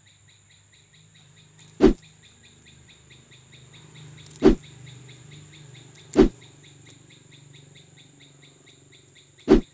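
Hand pruning shears snipping four times, each a sharp click, as they cut the thorns off a bougainvillea stem. A steady, fast, high chirping runs behind.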